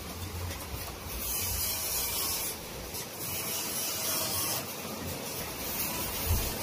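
Dry rubbing and scraping in several bursts of about a second each, from hands and an Allen key working the screws on the head of a 4D56 VE-type diesel injection pump, with a low hum underneath.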